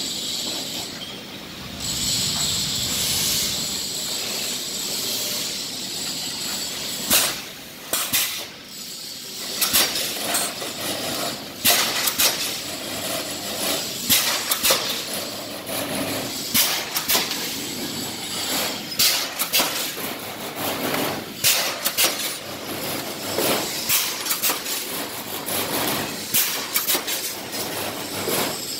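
Pneumatic reinforcing-mesh welding machine running: a steady hiss and hum, then, after several seconds, sharp clanks about once or twice a second as the air-cylinder-driven electrodes strike and weld the cross wires onto the rods.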